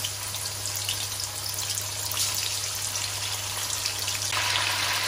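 Raw chicken pieces sizzling and crackling in hot oil in an aluminium karahi; the sizzle swells about four seconds in as another piece goes into the oil.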